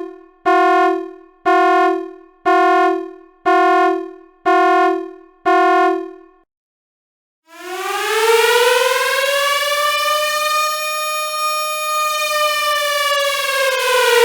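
Two alarm sounds one after the other. First a single-pitched alarm tone strikes about once a second, six times, each strike fading quickly. Then, after a short gap, a siren winds up in pitch over about two seconds and slowly falls, cutting off suddenly at the end.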